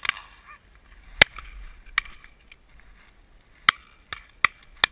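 A run of shotgun shots at driven partridges, six in all. The loudest comes about a second in and strong ones follow at two seconds and near four seconds, then fainter reports close together near the end from other guns along the line.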